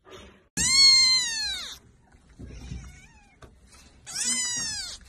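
Kitten meowing: two loud, high-pitched meows that rise and then fall in pitch, one about half a second in and another around four seconds in.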